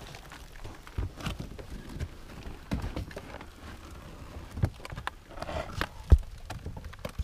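Hiking boots knocking and scraping on rock as a person scrambles up a steep rocky slope: irregular thuds, the loudest about six seconds in.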